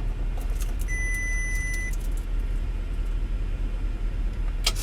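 Steady low rumble of a car idling, with a single clear high beep lasting about a second, about a second in.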